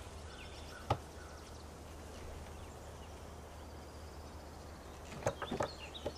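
Quiet ambience over a steady low hum, with a sharp click about a second in and a quick cluster of clicks and knocks near the end; faint high chirps sit in the background.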